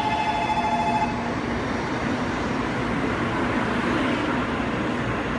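Tokaido Shinkansen bullet train rolling into the platform, a steady rushing noise with a low rumble as its carriages slide past. A steady two-tone electronic warning ring from the platform stops about a second in.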